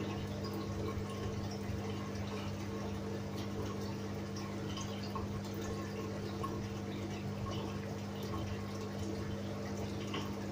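Steady hum of a fish-spa tank's water pump, with water trickling and faint scattered drips.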